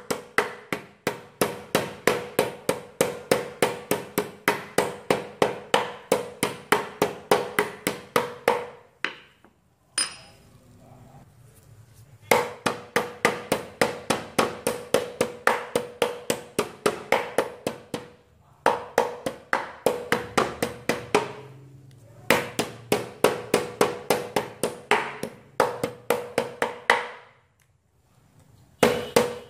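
Metal meat tenderizer mallet pounding slices of pork loin on a wooden chopping board: a fast, steady run of strikes about three a second, each with a short ring, stopping for a few seconds about a third of the way in and briefly twice more. The meat is being beaten thin so that it turns tender and takes up the seasoning and breading.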